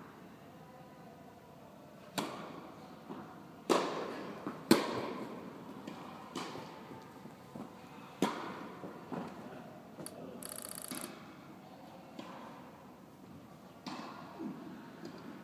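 Tennis rally: sharp racket strikes on the ball and ball bounces, irregularly spaced a second or more apart, each followed by the echo of a large indoor hall. The loudest hits come around four to five seconds in and near eight seconds. A brief high squeak comes about ten seconds in.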